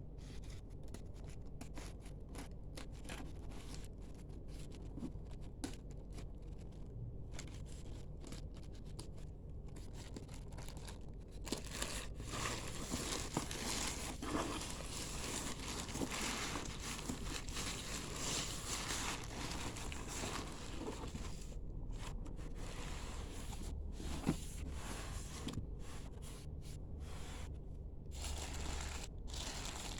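Packaging being unwrapped and handled: crinkling, rustling and tearing of wrapping, busier and louder from about twelve seconds in.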